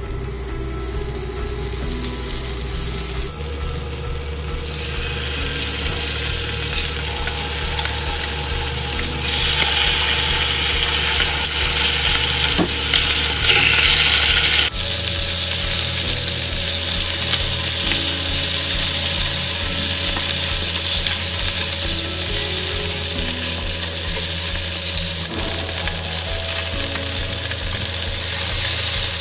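Olive oil and butter sizzling in a pan, then chicken thighs and drumsticks frying as they sear. The sizzle grows louder and steadier about halfway through.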